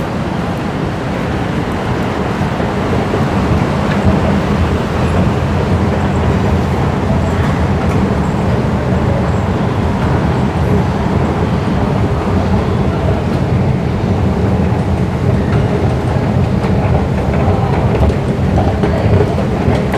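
Escalator running, heard from on the moving steps: a steady low rumble with a dense rattle, growing a little louder in the first few seconds and then holding even.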